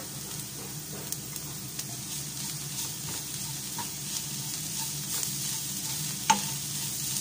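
Onion-and-masala mixture with crushed cooked chicken sizzling in a hot pan while it is stirred with a wooden spatula. A steady frying hiss runs under light scraping and small clicks, with one sharp click a little past six seconds in.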